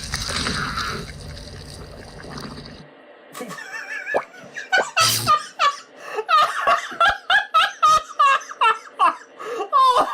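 Cartoon soundtrack: a dense mix of music and noise cuts off about three seconds in. It gives way to rapid, squeaky high-pitched cartoon-character giggling and chattering, with a sharp hit about five seconds in.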